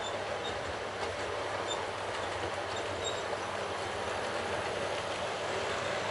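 Model 2D2 9100 electric locomotive and its coaches running along model railway track, a steady rolling and motor noise.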